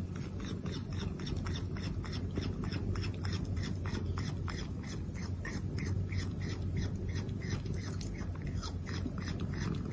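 Cat chewing a hard treat: rapid crisp crunches, several a second, over a steady low hum.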